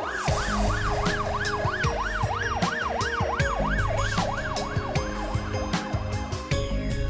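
Fire engine siren in a fast rising-and-falling yelp, about three sweeps a second, fading out about six seconds in. It plays over background music with a steady beat.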